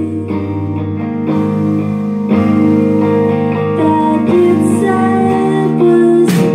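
Live indie rock band playing: electric guitars held over drums, with a sharp drum and cymbal hit near the end.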